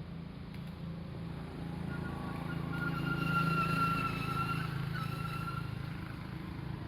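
A motor running with a steady low hum, and a higher whine that swells in the middle and fades away, like a vehicle passing.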